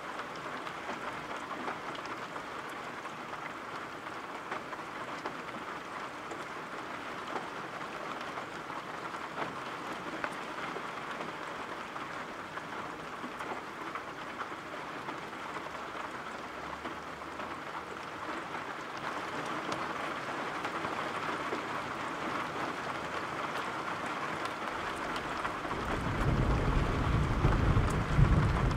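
Steady rain falling, with the patter of scattered drops. Near the end a low rumble of thunder rolls in and becomes the loudest sound.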